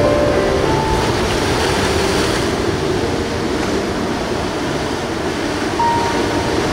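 Sea waves breaking on rocks and washing across a flat rock shelf: a steady rushing surf noise.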